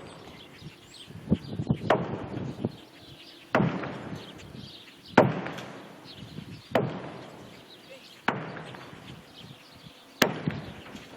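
Repeated heavy blows during silo demolition, one about every second and a half, each a sharp crack followed by a short decaying clatter.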